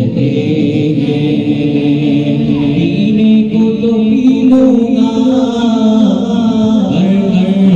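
Urdu naat sung a cappella: voices chant and sing a slow devotional melody over a held, drone-like vocal backing, with no instruments.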